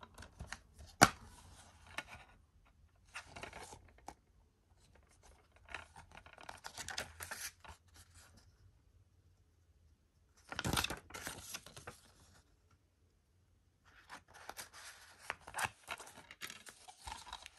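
Hands unwrapping and opening a plastic DVD case: about five bursts of tearing and rustling plastic, with one sharp click about a second in.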